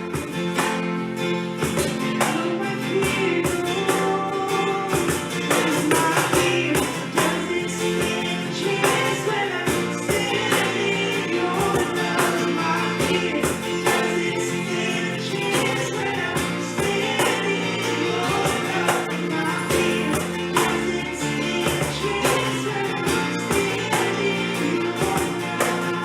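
Worship music: a band playing with singing and a steady beat.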